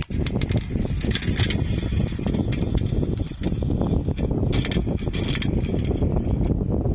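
Many marbles rolling along a marble run track: a continuous rumble with frequent clicks and clatters as they knock against the track and each other.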